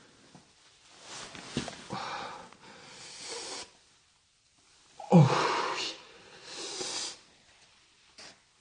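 A man's bodily noises while relieving himself: breathy straining sounds, the loudest a burst with a falling pitch about five seconds in.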